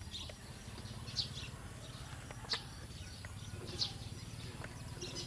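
Birds giving short, high chirps about once a second, over a steady low rumble of outdoor background noise.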